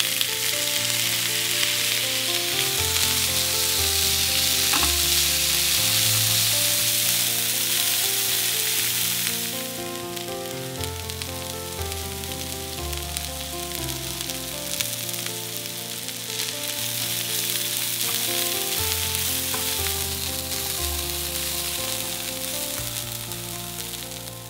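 Cooked beans and caramelized onions sizzling in oil in a frying pan, louder for the first ten seconds or so and then settling to a lower sizzle, over soft background music.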